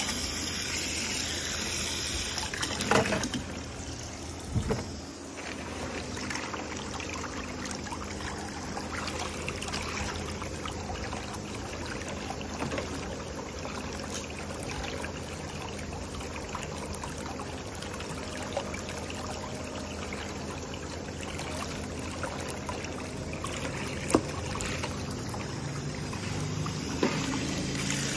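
Water spraying and churning in a pedicure spa chair's foot basin: a handheld sprayer runs into the tub, and the whirlpool jet stirs the water. A few sharp clicks come along the way.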